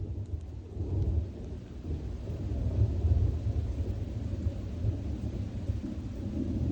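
Thunder rumbling low and rolling, swelling about a second in and again around three seconds, over falling rain.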